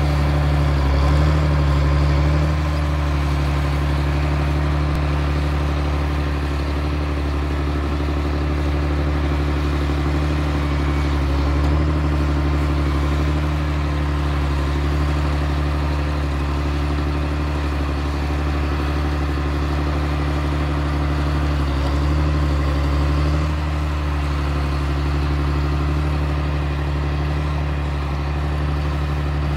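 A tractor's diesel engine running steadily while driving a vertical feed mixer that is unloading feed, a constant drone whose pitch lifts slightly a few times.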